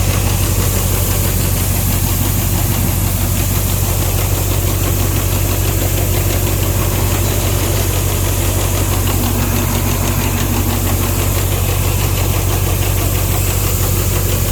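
Large diesel engine of farm harvesting machinery running steadily at constant speed, a low even hum with hiss over it.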